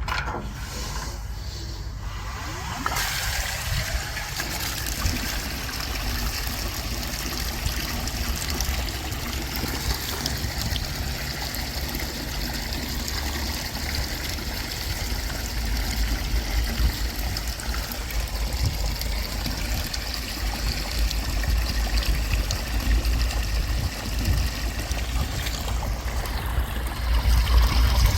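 Water running in a steady stream that starts about three seconds in and keeps flowing, with a low rumble beneath it.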